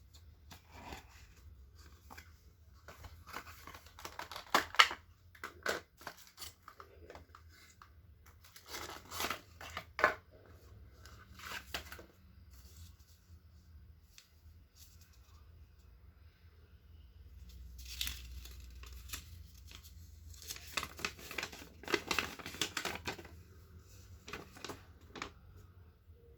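Packaging of a fingertip pulse oximeter being torn open and crinkled by hand, in four bursts of rustling and tearing with pauses between, the sharpest about five and ten seconds in.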